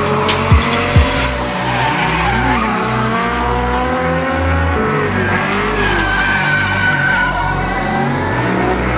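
Drift car sliding under power, its tyres squealing with a wavering, gliding pitch over the engine's steady drone. A few heavy thumps in the first second.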